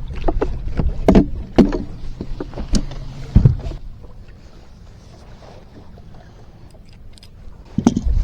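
Bass boat's outboard motor running with a low drone, with several sharp knocks, while the boat fails to get on plane. The drone drops away about four seconds in, and there is another loud knock near the end.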